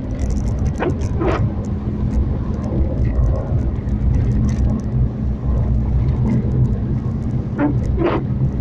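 A car's engine and tyres run steadily, heard from inside the cabin as a continuous low rumble. A few short, higher sounds cut in briefly about a second in and again near the end.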